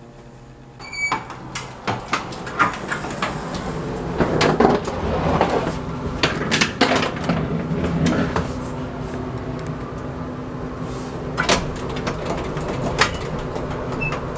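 A single short high chime, like an elevator arrival ding, about a second in. It is followed by a run of sharp knocks, clunks and rustling as people move about and step into the elevator. A steady hum runs underneath in the second half.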